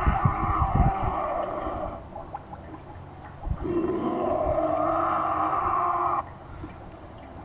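Two long, wavering moaning tones, each lasting about two to three seconds with a pause between them, typical of a spooky Halloween sound effect played through a speaker. Low rumbling thumps sound under the first moan.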